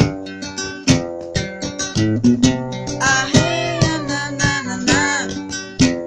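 Music: an acoustic guitar strummed and plucked in a steady rhythm. From about halfway through to near the end, a wavering melody line rises and falls over it.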